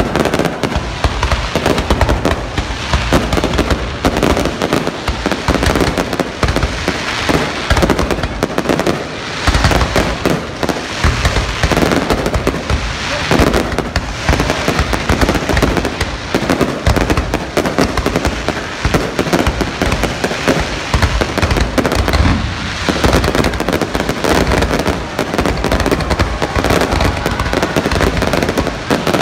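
Aerial fireworks display: shells launching and bursting in a dense, continuous barrage of overlapping bangs.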